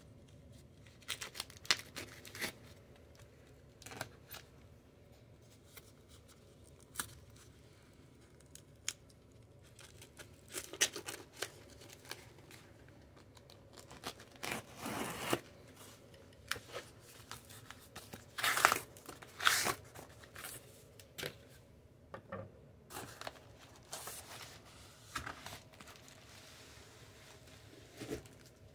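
Unboxing noises from a cardboard shipping box: a knife slicing through packing tape, tape tearing, and cardboard flaps scraping and rustling, in scattered bursts and clicks with the loudest bursts about halfway through and again about two-thirds through.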